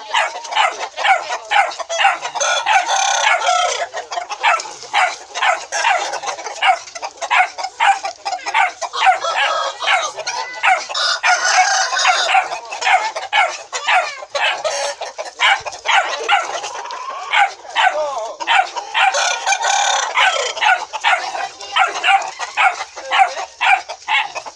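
Chickens clucking continuously, with a rooster crowing three times, about eight seconds apart.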